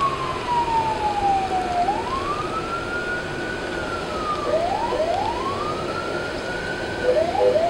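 Ambulance siren heard from inside the ambulance, wailing slowly up and down. It makes one long falling sweep, then rising sweeps that hold at the top, with a couple of short quick yelps between them, over a steady background hum.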